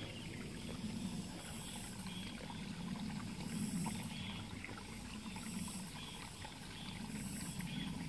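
Mountain stream flowing, a steady rush and trickle of water. A high-pitched pulsing sound recurs about every two seconds above it.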